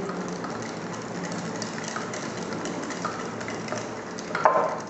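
A spoon stirring sharbat in a glass jug: a steady swishing of the liquid with light ticks of the spoon against the glass, briefly louder near the end.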